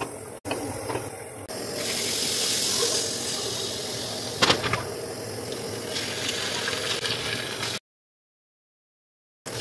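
Butter sizzling in a hot frying pan as eggs fry, with two sharp cracks about halfway through as eggs are broken into the pan. The sound cuts out completely for the last couple of seconds.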